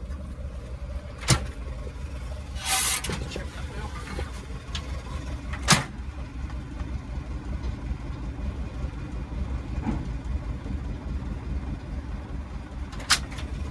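Volkswagen Type 2 camper van on the road, its air-cooled flat-four running with a steady low rumble inside the cab. Three sharp knocks come about a second in, near the middle and near the end, with a short hiss about three seconds in. The engine is running rich, which the owner puts down to carburettor jets letting too much fuel through.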